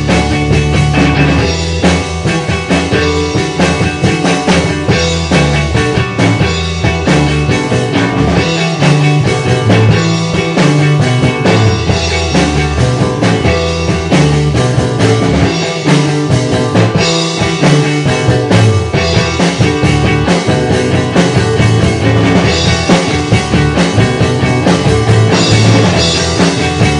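Rock song played by a trio of drum kit, bass and guitar, with a steady driving beat.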